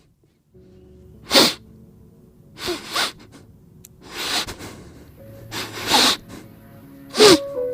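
A run of short, sharp sneezes, one about every one and a half seconds, over soft background music.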